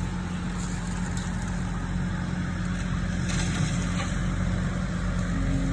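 Diesel engine of heavy earth-moving equipment running steadily at a constant speed, with no revving.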